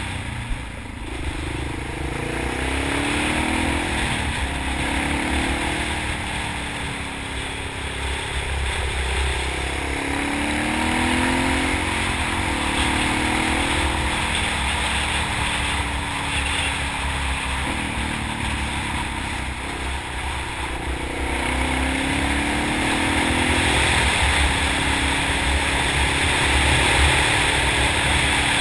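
Honda XR650 single-cylinder four-stroke motorcycle engine under way, its pitch climbing repeatedly as it accelerates and dropping back with each gear change or roll-off. Heavy wind rush over the microphone underlies it throughout.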